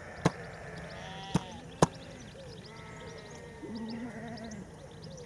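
Sheep bleating several times, some calls rising and falling in pitch, with three sharp clicks in the first two seconds.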